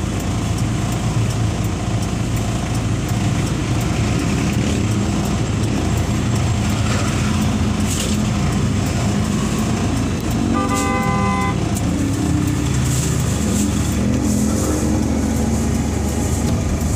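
Steady low rumble of an idling vehicle engine and street traffic, with a vehicle horn honking once for about a second around the middle.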